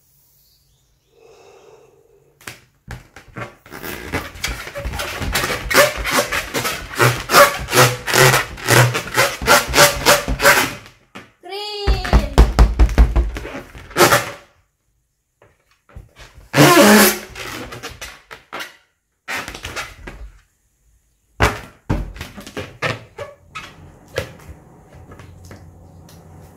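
A large inflated latex balloon being handled: fingers squeaking and rubbing on the taut rubber, with puffs of air around the neck. A long run of quick squeaks comes first, then a short gliding squeal near the middle, then scattered separate squeaks and knocks.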